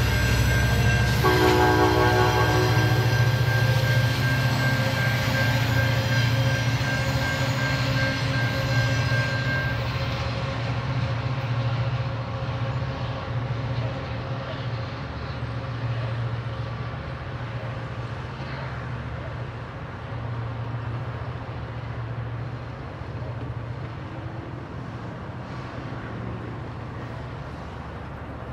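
EMD F59PHI diesel locomotive and its passenger train running past a grade crossing and pulling away, with a low engine rumble and wheel noise that fade steadily as the train recedes. The locomotive's air horn sounds for the first few seconds, and the crossing's warning bell rings until about ten seconds in.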